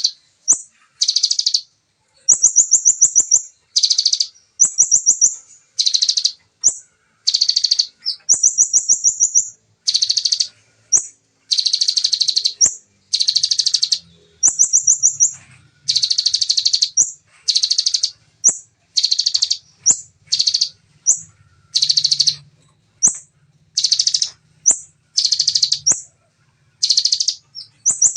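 Bar-winged prinia (ciblek) singing its rapid 'shooting' song. Short high bursts of fast trills and buzzy notes come about once a second with barely a pause, with brief upslurred chips in between.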